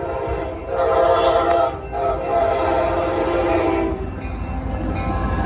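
F59PHI diesel locomotive's horn blowing, a long blast and then a second long blast after a brief break, over the low rumble of the diesel engine. The horn stops about four seconds in and the engine keeps running.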